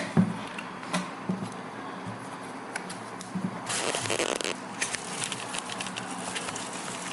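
Packaging being handled while a product box is opened: scattered light clicks and knocks, with a stretch of rustling and scraping about four seconds in.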